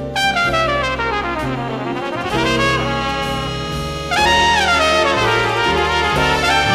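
Flugelhorn solo with big band accompaniment: two fast runs that sweep down and climb back up, the second starting louder about four seconds in, over bass notes underneath.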